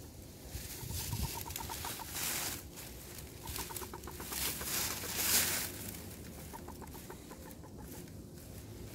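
A hen clucking in several short runs of quick, soft notes, while dry oak leaves rustle and crackle as she scratches through them, the leaf noise loudest about five seconds in.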